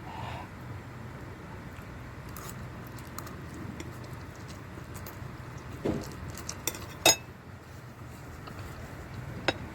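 A few sharp clinks of eating utensils against a bowl, the loudest about seven seconds in and another near the end, over a low steady hum.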